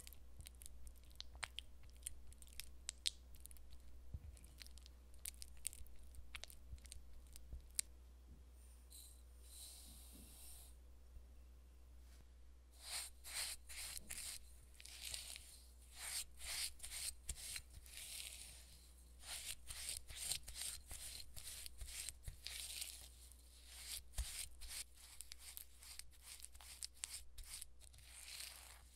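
Spatula scraping and mashing softened butter against a glass bowl, creaming it with sugar. Scattered scrapes at first, then quick repeated strokes, about two a second, from about halfway in.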